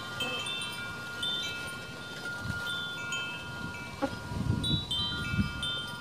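Wind chimes ringing, several high notes sounding and overlapping in quick succession over a steady lower ringing tone. A few low, soft thumps come about four to five and a half seconds in.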